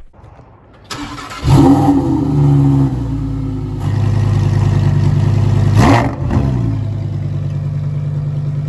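Sports car engine starting with a rev about a second and a half in, then running steadily, with another rev near six seconds in.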